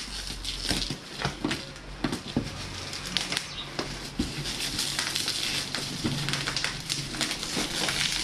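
Bubble wrap and plastic packaging being cut with a box cutter and torn open by hand, crinkling with many small crackles.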